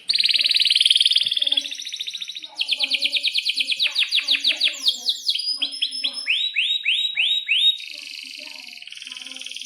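Domestic canary singing a long, varied song. It opens with a fast buzzing trill, then switches to quick runs of repeated notes and sweeping whistled notes, and ends with another fast trill.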